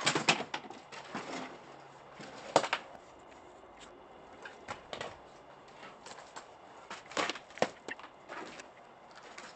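Footsteps crunching over scattered debris and grit, as irregular single steps a second or two apart after a brief cluster at the start.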